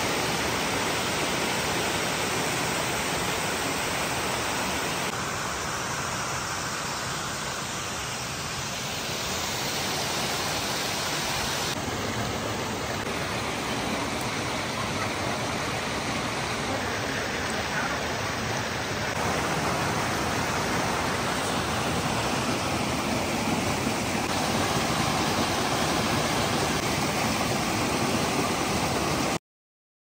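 Waterfall: a mountain stream cascading over rock slabs and boulders in a steady rush of falling water. It cuts off abruptly near the end.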